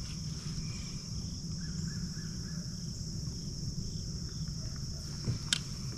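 Steady chorus of crickets, an even high-pitched drone, over a low rumbling background. A faint run of short calls comes about two seconds in, and a single sharp click near the end.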